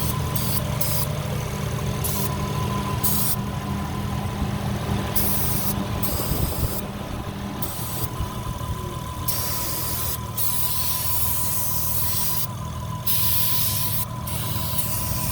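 Warmed-up car engine idling while brake parts cleaner is sprayed in hissing bursts, short ones at first and longer ones from about five seconds in, around cylinders 5 and 6 to hunt for a vacuum leak. A thin steady high tone runs under the idle.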